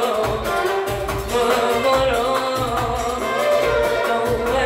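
Live Arabic tarab song: a woman sings long held notes that waver and curl in pitch, accompanied by violin and a band with a pulsing low beat.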